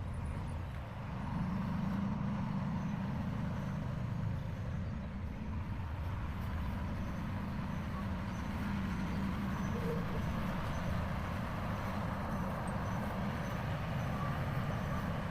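Heavy equipment's engine running steadily with a low rumble that grows slightly louder about a second in.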